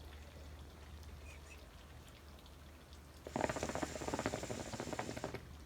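A rapid crackling rustle starting a little past halfway and lasting about two seconds, over a low steady hum.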